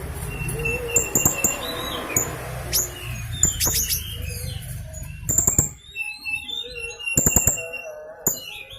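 Blue-crowned hanging parrot (serindit) calling: clusters of shrill, sharp high chirps every second or two, with quick twittering notes in between.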